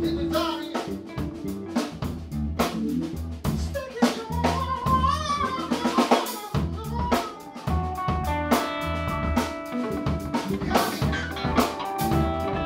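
A rock band playing live, the drum kit to the fore with snare and kick over a steady electric bass line, guitars and keyboard above. The bass drops out briefly about six and a half seconds in before the groove comes back.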